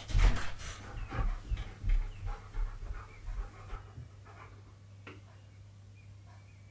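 A husky panting in quick repeated breaths, with low thuds of its paws as it comes in. The sounds die down after about four seconds, when the dog stands still.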